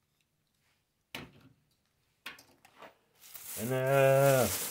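A few small handling clicks, then a thin plastic carrier bag rustling as a hand rummages inside it. About four seconds in, a man's drawn-out voiced sound lasting about a second rises and falls in pitch over the rustle and is the loudest thing.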